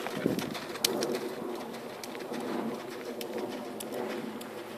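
Low bird cooing in the background, with a couple of soft clicks.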